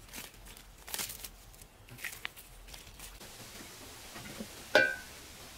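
A few soft rustles and steps on dry stony ground, then a single loud metallic clank with a brief ring as a large metal cooking-pot lid is handled by its handle, about two thirds of the way in.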